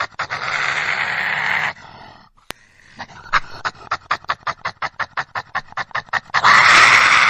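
Badger vocalising: a loud breathy hiss lasting over a second, then after a short pause a rapid run of short huffs at about six a second, ending in another loud hiss.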